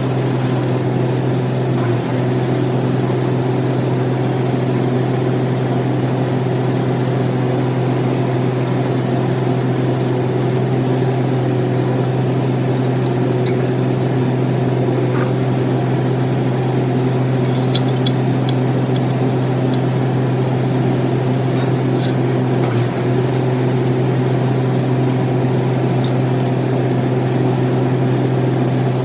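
Metal lathe running steadily with a constant low hum, with a few faint light ticks in the middle.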